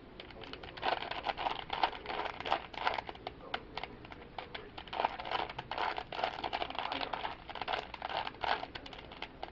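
A 3x3 Rubik's cube being turned quickly by hand during a solve: rapid, irregular clicks and clacks of its plastic layers.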